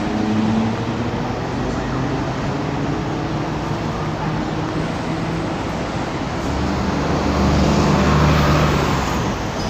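Road traffic: the steady running of bus and car engines, with a deeper engine hum that grows louder from about seven seconds in, as if a heavy vehicle passes close.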